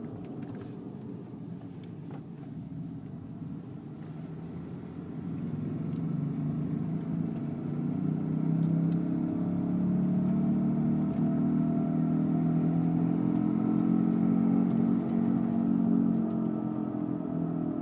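Drone from the front hub assembly of a moving Lexus IS250, a few steady low tones together; it grows louder from about five seconds in and then holds steady.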